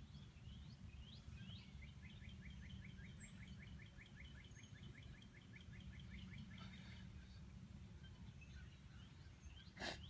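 Near silence: faint outdoor background with a steady low hum, and a faint rapid trill of high chirps, about five a second, for several seconds. A single sharp click comes just before the end.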